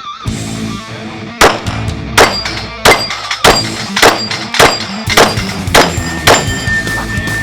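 A Glock 22 .40 S&W pistol firing about nine shots at a steady pace, roughly one every two-thirds of a second, with steel targets ringing after hits. Background music plays underneath.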